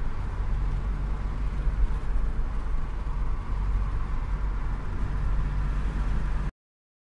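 Steady in-cabin road noise of a car being driven: a low rumble with a hiss above it. It cuts off abruptly about six and a half seconds in.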